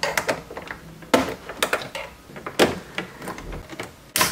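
Plastic centre-dash trim panel of a BMW E90 being pried loose by hand: a series of sharp plastic clicks and snaps, about five, the loudest near the end.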